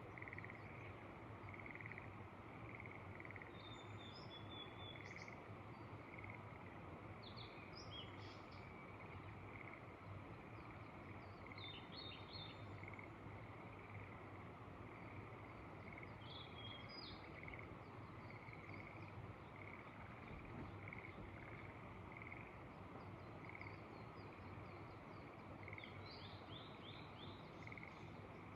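A chorus of frogs calling in a steady train of short repeated notes, with brief bird chirps now and then over a soft, even background hiss.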